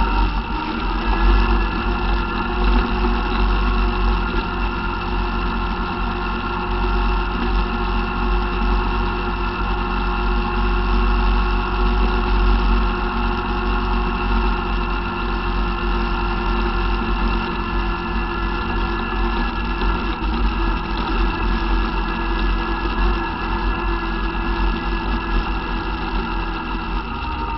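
ATV engine running steadily under way along a dirt trail, with a strong low rumble. The engine pitch climbs just at the start, holds steady, and eases slightly near the end.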